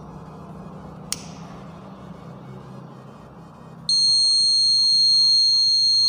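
A lighter clicks about a second in; just before four seconds a round electronic buzzer starts a loud, steady high-pitched tone and holds it. The buzzer is set off as the lighter's flame heats the glass heat-sensing lamp in the homemade fire-alarm circuit, closing it and letting current flow to the buzzer.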